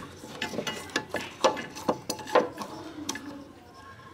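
Spanner clicking and clinking against a steel stud and nut as the stud holding a Landi Renzo CNG pressure reducer to the car body is worked loose; an irregular run of sharp metallic clicks, the loudest about one and a half and two and a half seconds in.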